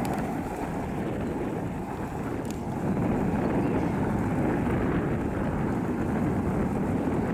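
Boeing 737-800's twin CFM56-7B turbofan engines at takeoff power as the airliner rolls down the runway: a steady, low jet rumble.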